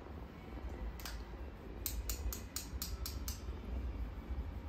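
Steady low room hum, with a quick run of about eight light clicks roughly two seconds in.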